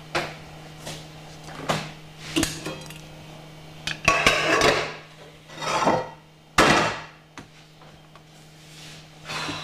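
Kitchen handling sounds from a stainless steel pot with a red lid on a gas hob: a few light knocks, then louder scraping clatters from about four to seven seconds in, over a steady low hum.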